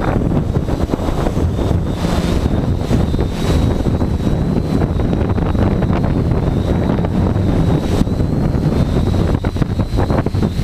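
Strong wind buffeting the microphone in a loud, constant low rumble, with a thin high whine from the Tarot 680 hexacopter's motors and propellers wavering faintly underneath.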